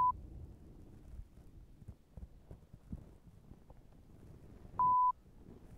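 A single short, steady electronic beep a little before the end, over faint low rumbling and a few soft knocks.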